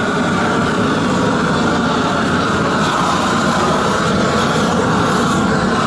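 Propane roofing torch burning, a steady rushing noise without a break, used to heat torch-down modified bitumen membrane.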